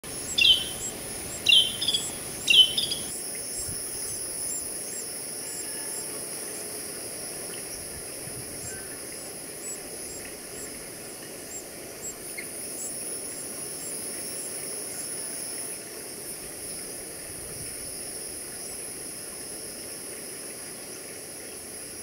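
Three loud song phrases about a second apart near the start, each a quick downward sweep, typical of a Carolina wren singing. A steady high-pitched insect chorus runs underneath.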